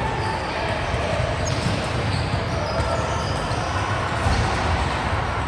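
Steady din of an indoor volleyball game, with the ball being hit and bounced on the court.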